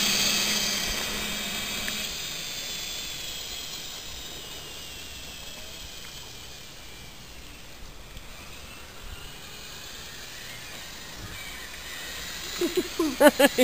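Electric go-kart driven by a 24-volt cordless drill motor, its motor whining as the kart drives off, fading steadily into the distance.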